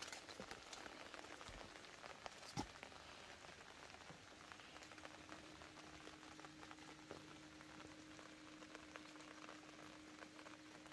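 Light rain falling, a faint patter of scattered drops. One soft knock about two and a half seconds in, and a faint steady hum joins about four seconds in.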